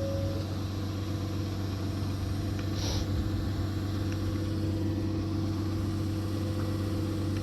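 Engine of a post-hole auger machine idling steadily, with a short hiss about three seconds in.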